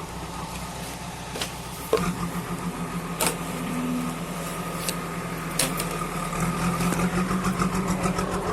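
An engine running steadily, getting louder about two seconds in, with several sharp knocks or clanks over it.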